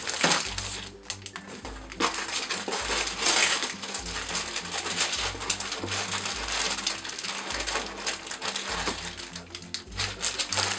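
Packaging rustling and crinkling as a parcel of blind bags is opened by hand, with louder scrunches now and then, over background music with a steady bass beat.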